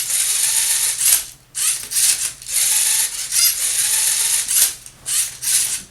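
LEGO Mindstorms NXT robot Rubik's Cube solver working: its motors and Technic gears whir while the turntable rotates and the arm tips the plastic cube, the cube's layers grinding and clicking as they turn. The movements come one after another, separated by short pauses.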